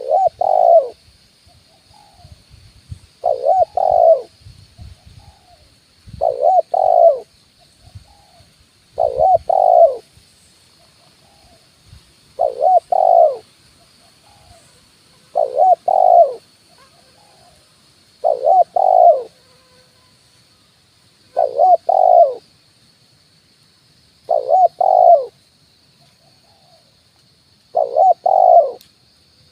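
Spotted dove (tekukur) cooing: a short phrase of two or three loud coos repeated about every three seconds, with softer single notes in between. This is a lure call used to draw wild doves in.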